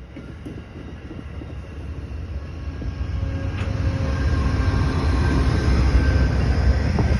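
Amtrak diesel passenger train rolling past at close range, a steady low rumble of the cars and running gear with a diesel locomotive's drone. It grows steadily louder as the locomotive, a GE Genesis, draws near.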